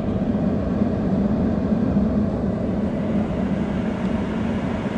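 Steady rushing hum of a 2019 Lexus ES350's cabin climate-control blower fan running, heard from inside the car.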